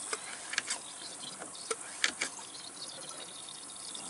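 A few sharp plastic clicks and knocks from a one-gallon hand pump sprayer as its pump head is worked on the jug, over a steady high hiss.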